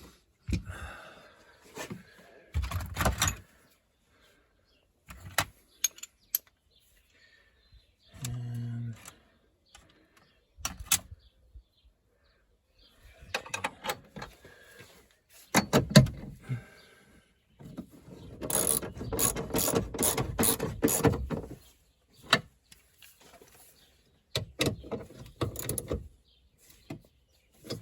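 Hand tools working on a car battery in its well: scattered metal clicks and knocks, with a run of quick clicks lasting about three seconds in the later part, as the battery clamp is fitted with a spanner.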